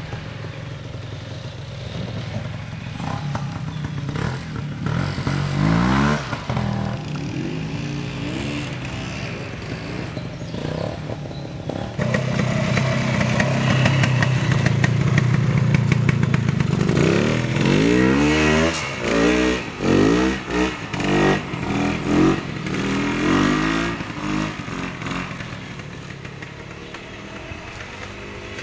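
Vintage trials motorcycle engine running at low revs, with short throttle blips that rise and fall in pitch. It gets louder about halfway through, then gives a quick run of revs before fading away near the end.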